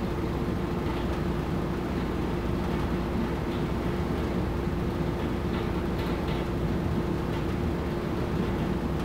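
Steady machine-like hum and rumble with one constant mid-pitched tone, with a few faint taps heard over it.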